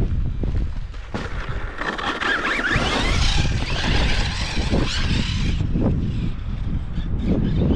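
Wind buffeting the microphone with a low rumble. From about two seconds in, a loud hissing rush with a faint wavering whine joins it and cuts off suddenly a little past five seconds.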